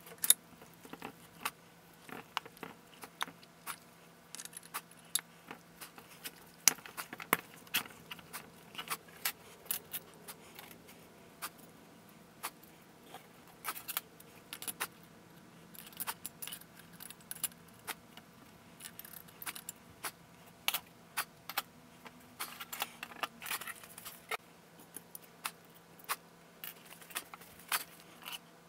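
Metal transmission parts, the clutch drum, clutch plates and small steel pieces, clinking and scraping irregularly as they are handled and taken apart by hand, over a faint steady hum.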